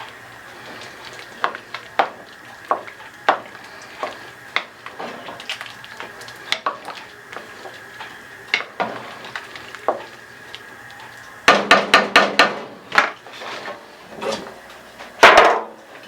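A spoon stirring a pot of gumbo, knocking and scraping against the pot, with a quick run of clinks about two-thirds of the way through.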